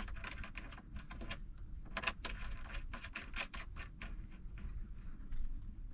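Quick, irregular light clicks and rattles of small metal hardware being handled: a ring terminal, nut and small wrench being fitted to a battery's positive post.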